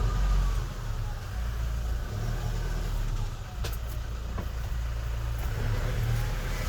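Car driving: a steady low rumble of engine and road noise, with a single click a little over halfway through.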